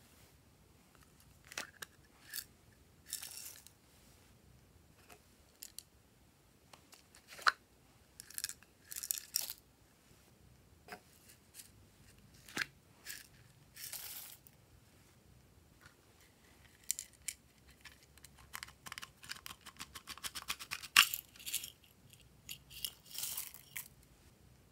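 Small plastic pots handled, opened and shaken so that sequins and confetti pour out onto slime: scattered clicks and short rustles, with a longer spell of rapid rattling taps a little past the middle.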